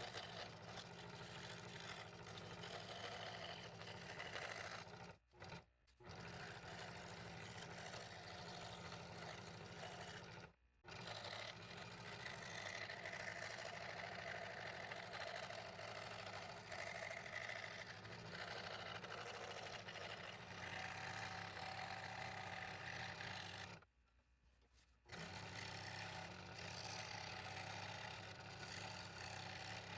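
Scroll saw running and cutting the wood, a steady machine hum with blade noise, which drops out abruptly three times for a moment.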